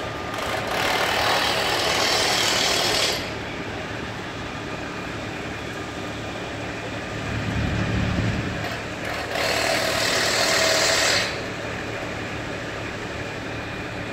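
Steady hum of idling site machinery, with a low engine rise about halfway through. Twice a loud hiss cuts in and lasts two to three seconds each time.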